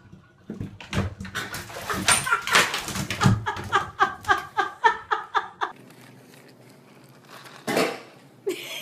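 A pet animal gives a quick run of short, high-pitched cries, about four a second, for a couple of seconds, after a stretch of knocking and clatter.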